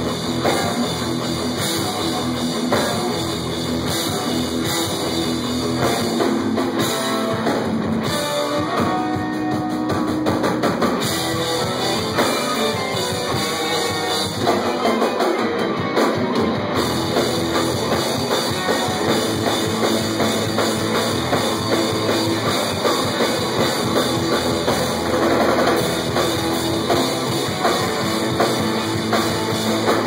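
Rock band playing live: distorted electric guitars, bass guitar and a drum kit keeping a steady beat.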